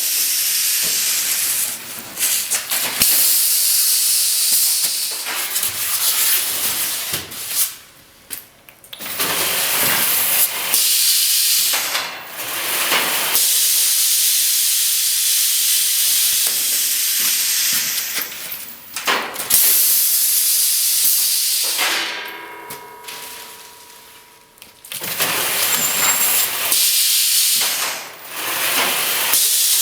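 Automatic expanded-polystyrene packaging machine running, with loud hissing in stretches of several seconds broken by short pauses; during the longest pause, about two-thirds through, a faint steady hum is left.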